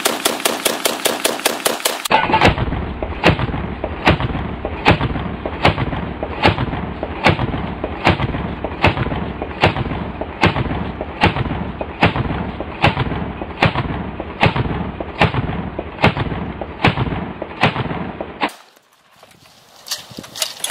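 AA-12 fully automatic 12-gauge shotgun firing a fast burst, about five shots a second. About two seconds in, the burst changes to a slowed-down replay: about twenty deep, drawn-out booms, each about 0.8 s apart, with the top end gone. Near the end the shots stop, leaving a few quieter knocks.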